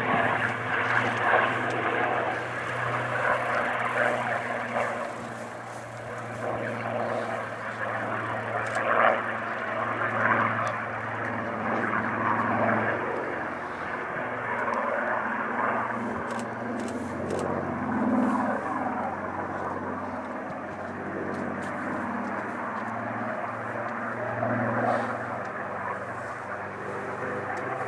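Supermarine Spitfire's V12 piston engine running at display power, its drone swelling and fading several times as the fighter banks and turns.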